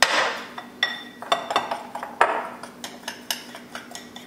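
Kitchen utensil clinking and scraping against a mixing bowl: a few sharp clinks, one ringing briefly about a second in, with short scrapes at the start and again a little past two seconds.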